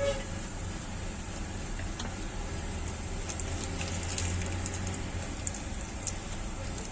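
Faint crackling ticks of flux and solder under a soldering iron tip, scattered through the middle and later part, over a steady low hum.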